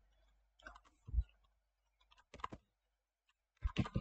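Computer mouse clicks, a few short sparse clicks in four small groups, one with a soft low knock about a second in.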